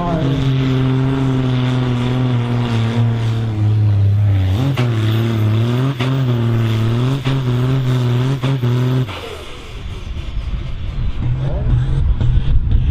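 Ford TW-25 tractor's turbocharged six-cylinder diesel pulling hard against the sled under full load, its pitch sagging and surging as it labours. It cuts off abruptly about nine seconds in, and a rougher engine rumble builds after it.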